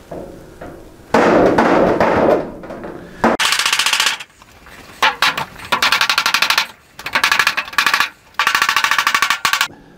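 Hammer beating on the edge of a steel sheet in several rapid bursts of fast, ringing blows, marking a crease where a V will be cut. About a second in there is a loud clatter of the sheet.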